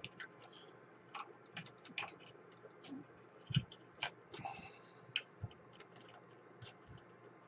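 Faint, irregular small clicks and taps of hands fitting cardstock spacers and parts into an opened disk drive's case and mechanism, with a brief rustle of card about halfway through.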